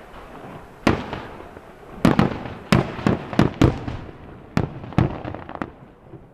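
Aerial fireworks shells bursting: about ten sharp bangs, with a quick volley between two and four seconds in, each trailing off in a rumbling echo.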